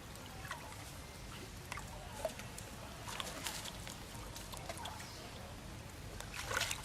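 Scattered short squeaks and chirps from animals over a steady outdoor background, with a bunch of them about three seconds in and another near the end.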